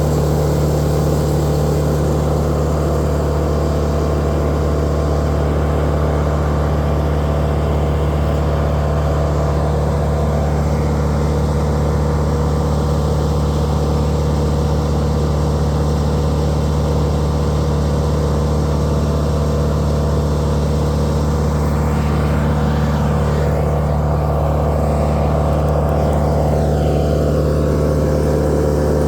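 An engine running steadily at a constant speed, giving a low, even drone.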